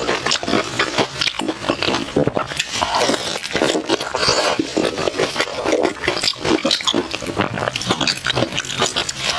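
Close-miked chewing of crispy fried glutinous-rice banana, a dense run of irregular crunches and crackles.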